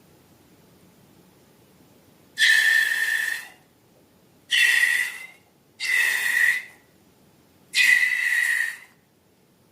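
Air rushing out of a funny balloon's neck with a whistling squeal, four times, each blast lasting about a second at a fairly steady high pitch.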